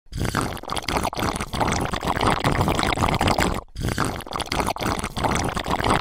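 Shallow stream water rushing and splashing over rocks in a small cascade, dropping out briefly a little past three and a half seconds.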